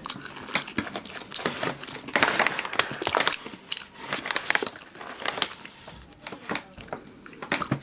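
Paper fast-food wrapping crinkling and rustling in irregular crackly bursts as food is handled.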